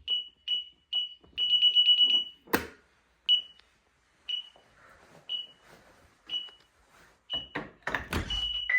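DSC Impassa SCW9047 wireless alarm panel beeping. First come a few short beeps and a quick run of key-press beeps, then a single loud knock. After that come single beeps about once a second, typical of an exit-delay countdown after arming, ending in a longer beep.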